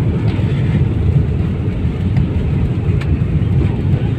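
Steady low rumble of airliner cabin noise as the plane lands, heard from inside the cabin.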